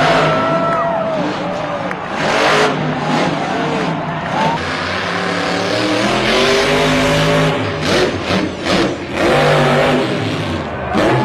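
Monster truck engines revving hard, pitch rising and falling, over a noisy rush of tyres in the dirt, with a few sharp knocks near the end as a truck lands on crushed cars.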